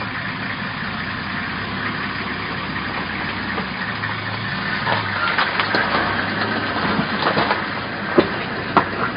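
Vehicle engine idling with a steady low hum. From about halfway through, a scatter of sharp crackling clicks comes in over it.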